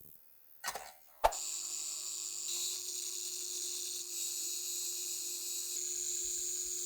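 Two knocks, then a small electric power tool starts up and runs steadily with a high hiss over a low hum.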